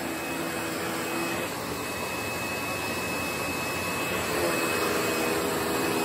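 Panasonic MC-V5005 bagged upright vacuum with a 12-amp motor running on a hard floor, a steady rushing whine with a high tone held throughout. A lower hum sounds for about the first second and a half and comes back about four and a half seconds in.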